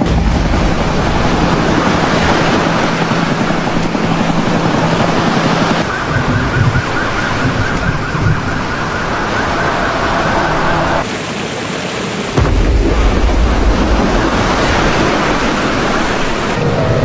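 Loud rushing floodwater and heavy rain, the sound changing abruptly several times as the footage cuts between scenes. A steady high tone sounds for several seconds in the middle.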